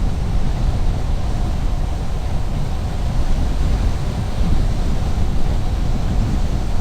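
Steady low road and tyre rumble of a moving car, with wind noise.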